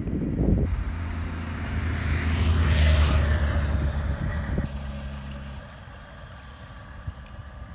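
A motor vehicle driving past: engine and tyre noise swell to their loudest about three seconds in, then fade away. Wind buffets the microphone at the start.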